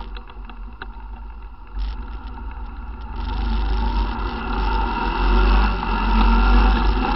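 ATV engine running quietly with a few light clicks and rattles, then picking up speed about three seconds in, getting louder and rising in pitch, over a steady low rumble.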